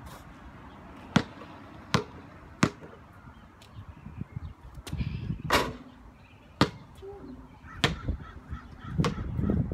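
A basketball bouncing on a paved driveway: seven sharp single bounces in all, the first three about three quarters of a second apart, the rest more spread out.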